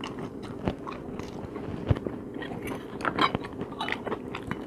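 Close-up chewing and mouth sounds of a person eating king crab meat, with many scattered small sharp clicks. Near the end, a fork and knife are worked on the plate.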